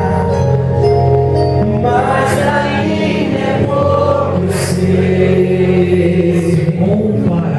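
Gospel worship song: a group of voices singing over long held accompaniment notes.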